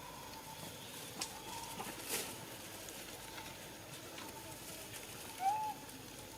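A single short animal call, a squeak that rises then falls, about five and a half seconds in, over faint scattered clicks.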